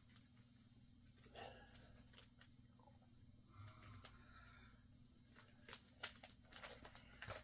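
Faint rustling and light clicks of plastic-bagged comic books being handled and flipped through, over a low steady hum; the handling sounds grow busier near the end.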